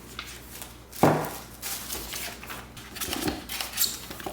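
A sharp thump about a second in, as something is set down on a hard surface, followed by rustling and small knocks of packaging and accessories being handled.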